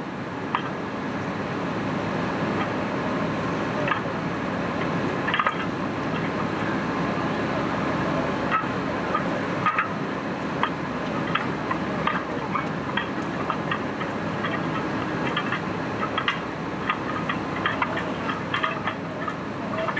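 A fire ladder truck's engine running steadily, with frequent short crackles and clicks over it, more of them in the second half.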